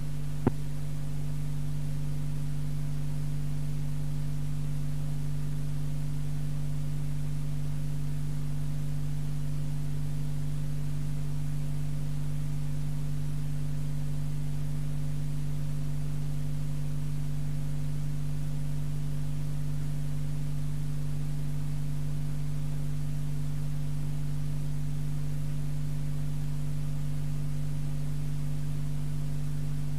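Steady electrical hum with a faint hiss underneath, unchanging throughout, with a faint click about half a second in.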